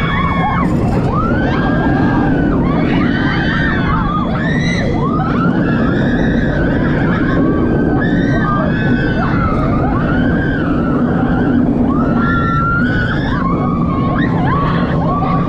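Riders screaming and yelling over the steady roar of a B&M inverted roller coaster train running on its track, with rushing wind on the microphone.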